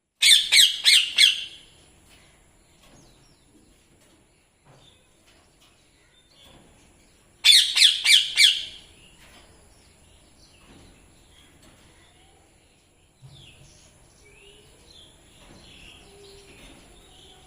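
Indian ringneck parrot calling: two runs of about four loud, harsh, rapidly repeated calls, several seconds apart, then softer scattered chirps near the end.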